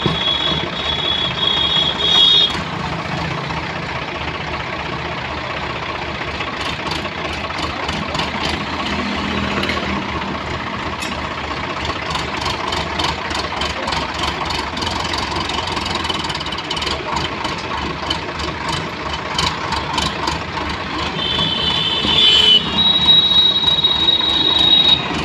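Indo Farm 3065 DI tractor's diesel engine running steadily as the tractor moves with a mounted seed drill. A high steady tone sounds for about two seconds at the start and again for a few seconds near the end.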